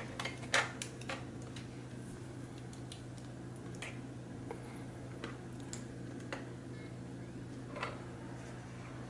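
A few sharp clicks in the first second as the power plug is pushed into the Dell Inspiron 15R laptop's side jack, then scattered faint clicks and taps over a steady low hum.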